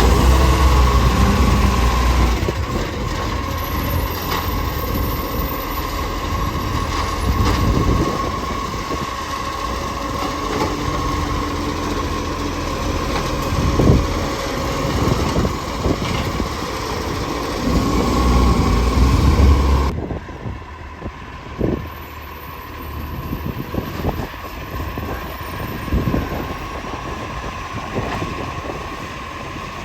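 Garbage truck engine running with an exhaust leak, under a steady high tone. The low rumble surges loudly near the start and again just before the sound drops abruptly to a quieter level about two-thirds of the way through.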